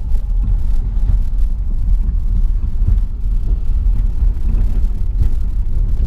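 Steady low rumble of a car's tyres and engine heard from inside the cabin while it drives over a rough gravel road surface broken up by heavy rain.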